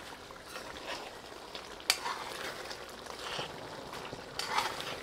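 Stew pork cooking in a metal pot with a faint steady hiss while a large metal spoon stirs it. The spoon clinks sharply against the pot once about two seconds in and scrapes through the meat a couple of times near the end.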